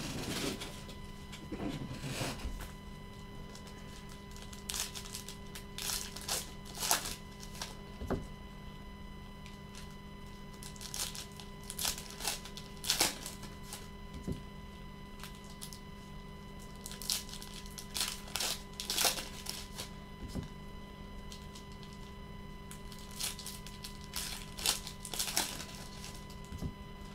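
Foil wrappers of Contenders Basketball trading card packs being torn open and crinkled, with cards being handled, in irregular bursts of crackling a few seconds apart. A faint steady electrical hum runs underneath.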